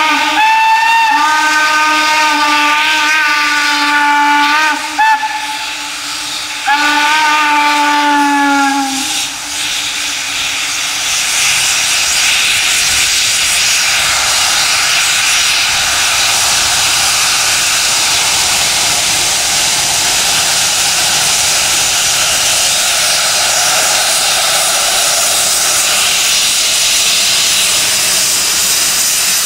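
Shay geared steam locomotive's whistle blowing a long blast, then a shorter second one about seven seconds in. About ten seconds in, a loud, steady rushing hiss of steam and exhaust builds up and holds as the locomotive works past with its log train.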